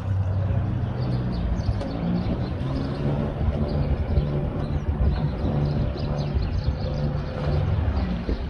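Sailing yacht's inboard engine running at low speed as the yacht motors slowly ahead: a steady low hum whose pitch shifts slightly now and then.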